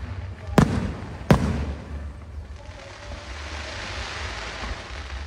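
Aerial firework shells exploding: two sharp bangs about half a second apart near the start, followed by a few seconds of crackling hiss that swells and fades.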